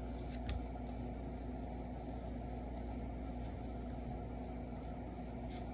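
Steady machine-like hum and hiss, such as a fan or air conditioner, with a couple of faint clicks from trading cards being handled, about half a second in and near the end.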